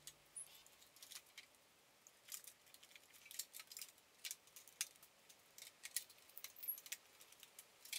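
Faint, scattered light clicks and rattles of electrical cables and plugs being handled and laid over a CNC control box.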